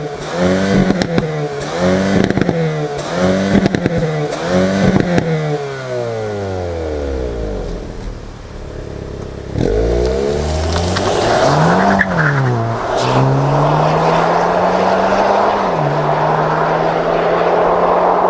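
Hyundai Kona N's turbocharged 2.0-litre four-cylinder engine revving in quick repeated rises and drops with sharp crackles, then falling steadily in pitch as the car slows. About ten seconds in it accelerates again, with two upshifts of the 8-speed dual-clutch gearbox, over growing road and wind noise.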